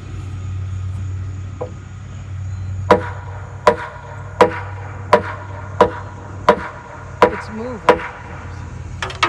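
A big hammer striking a solid white oak header, about eight evenly spaced blows, one every three-quarters of a second or so, starting about three seconds in, to knock the heavy beam sideways into place.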